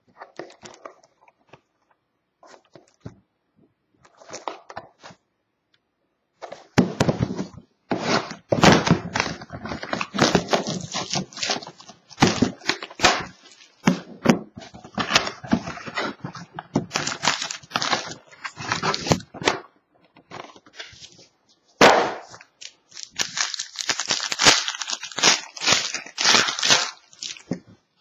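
Plastic and foil wrapping of a sealed trading-card box and its packs being torn open and crinkled. A few faint rustles at first, then about twenty seconds of dense crackling and tearing, with a short pause near two-thirds of the way through.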